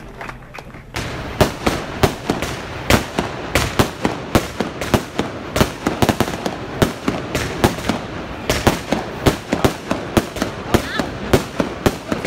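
Aerial fireworks going off: a rapid, irregular string of sharp bangs and crackles, several a second, starting about a second in.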